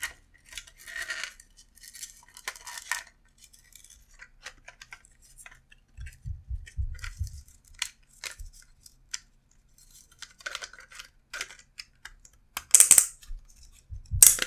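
Hand-handling of 3D-printed plastic mouse parts and their wires as a module is fitted in: scattered small plastic clicks, rustles and scrapes, a run of dull low thumps about six seconds in, and a couple of sharp loud clicks near the end.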